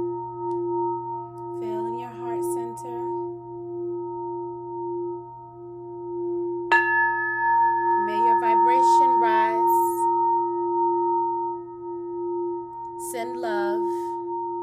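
Singing bowls ringing in a sound bath: a steady low tone that pulses gently, with several higher tones sustained above it. About seven seconds in, a bowl is struck, adding a brighter ring.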